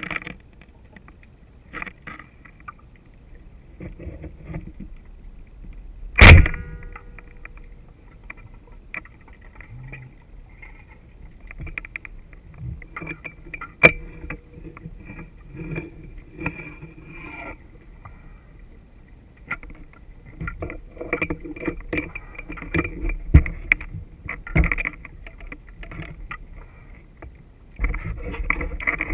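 Underwater gear noise heard through a speargun-mounted camera housing: a single sharp, very loud crack about six seconds in as the speargun fires. Scattered clicks, knocks and scraping follow as the speared salpa is hauled in on the shaft, turning to denser noise near the end as the gun nears the surface.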